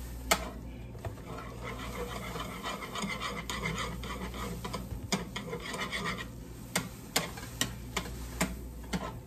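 Dry instant mashed potato flakes pouring from a cardboard box into a pot of warm milk, a steady rustling pour. A few sharp clicks come in the last few seconds.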